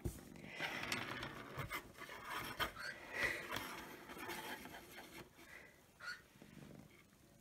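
A hand stroking a cat's fur and the cat shifting about on a desktop: irregular soft rubbing and scraping, with a few light knocks in the first couple of seconds.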